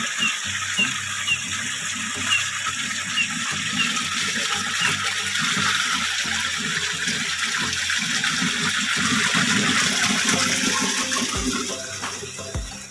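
Rustling and shaking of jackfruit-tree leaves and branches, swelling about ten seconds in and easing off near the end. A faint high chirp repeats every half second or so until about five seconds in.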